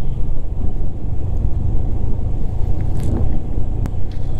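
Motorcycle engine running steadily under way, with wind rushing over the microphone and two brief clicks about three and four seconds in.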